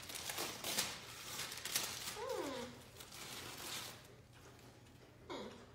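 Tissue paper rustling and crinkling as a toddler pulls it out of a cardboard box, with a short falling vocal sound from the toddler about two seconds in and another brief one near the end.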